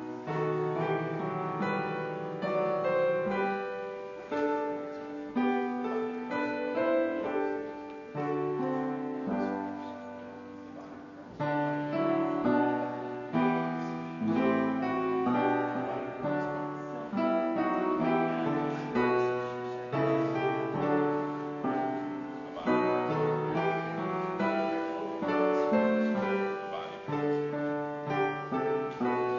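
Piano music: a melody over chords, with notes changing every half-second or so.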